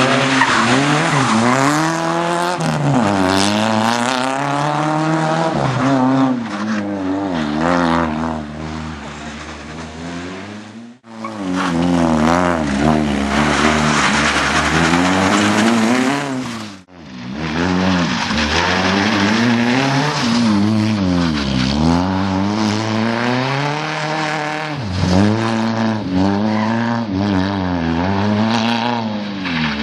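Opel Corsa competition car's engine revving hard and changing gear, its pitch climbing and dropping again and again. The sound cuts out briefly twice, about 11 and 17 seconds in.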